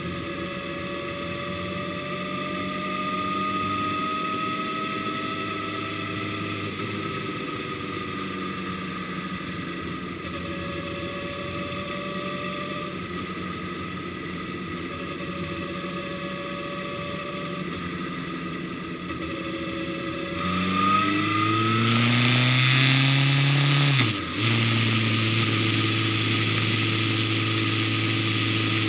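Engine of the vehicle carrying the camera, heard onboard, running steadily while cruising. About two-thirds of the way through it revs up with a rising pitch and a loud rushing noise comes in. After a brief break in the sound it runs on loud and steady.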